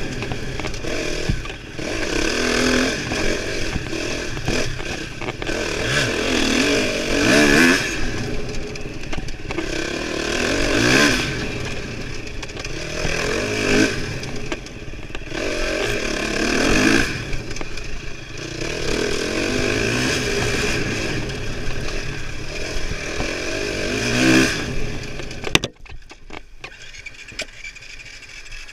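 KTM four-stroke dirt bike engine revving up and down hard under throttle, with the pitch climbing and falling every couple of seconds through the gears, over wind and ground noise at the helmet camera. Near the end the engine sound drops away abruptly and much quieter sound remains.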